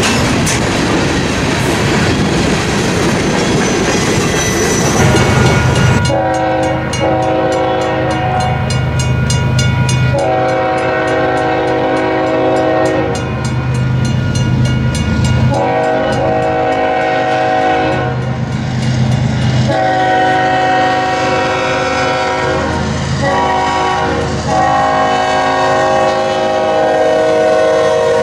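Grain train's covered hopper cars rolling past close by, wheels clacking over the rail joints. After about six seconds a diesel locomotive's air horn, several tones sounding together, blows a series of long blasts with a short one near the end: the warning for a grade crossing as the train approaches.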